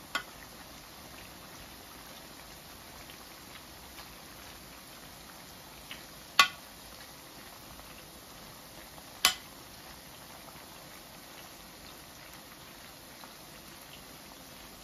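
Plantain slices deep-frying in plenty of hot oil, a steady bubbling sizzle. Three sharp knocks break it, at the very start, about six seconds in (the loudest) and about nine seconds in.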